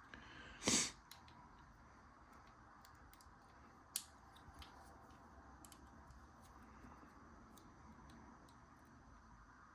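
Lock picking tools working in an ABUS 72/40 padlock: a short metallic scrape under a second in, a sharp click about four seconds in, and faint scattered ticks as the pick probes the keyway.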